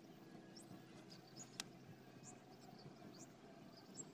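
Near silence: faint outdoor background with scattered short, high bird chirps and a single faint click about one and a half seconds in.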